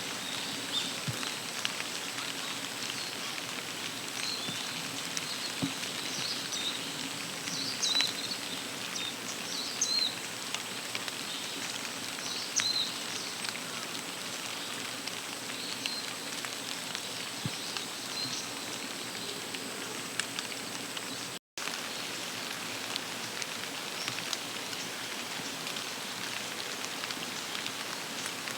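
Steady outdoor hiss with scattered short, high bird calls, most of them in the first half. The sound cuts out completely for a moment about two-thirds of the way through.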